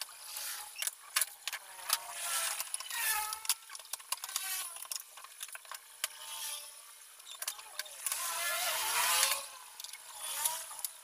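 Cordless electric screwdriver driving screws into a plastic car AC evaporator housing in several short runs, its motor whine sliding down in pitch as a screw tightens. Between runs, screws and small metal parts clink.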